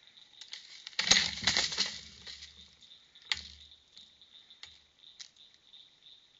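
A hanging tube bird feeder is knocked down by a raccoon. It clatters and rattles for about two seconds, starting about a second in, then gives one more sharp clack and a few faint ticks. Crickets chirp steadily throughout.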